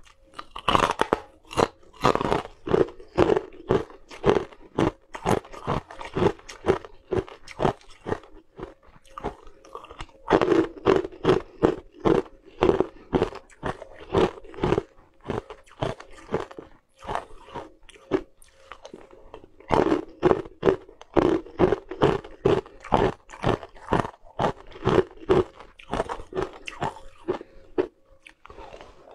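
Crunching and chewing of frozen purple ice chunks bitten off one after another, a dense run of sharp crunches broken by two short pauses.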